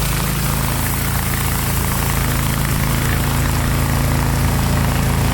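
Air-cooled 30 hp Kohler engine of a hot water pressure washer running steadily at a constant speed, with an even hiss over the low hum.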